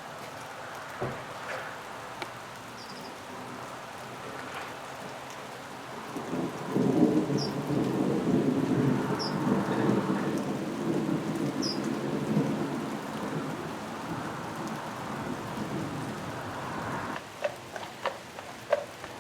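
Steady rain falling, with a long rumble of thunder that swells about six seconds in, rolls on for about ten seconds and dies away. Sharp drips and taps of rain stand out near the end.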